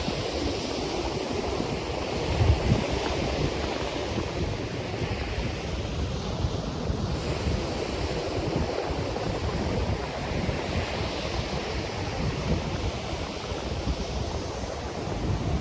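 Ocean surf washing steadily onto a beach, with wind rumbling on the microphone and a louder gust about two and a half seconds in.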